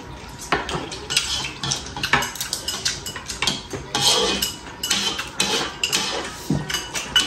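Spoon and chopsticks clinking and scraping against ceramic bowls in short, irregular taps, with chewing and slurping of soup.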